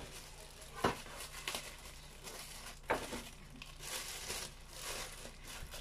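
Faint rustling and crinkling handling noise, with scattered light clicks and two sharper knocks about a second in and about three seconds in.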